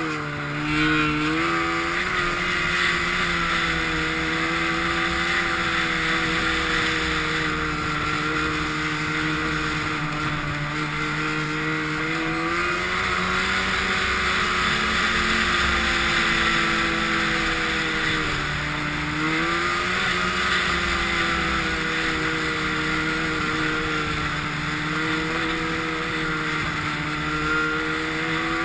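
Snowmobile engine running while riding, its pitch drifting up and down with the throttle. It drops briefly about eighteen seconds in, then picks back up, over a steady hiss.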